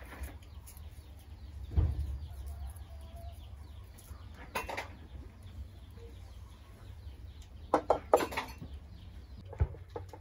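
Chickens clucking, with a few sharp clanks and knocks as the metal lid of a wok is lifted and handled.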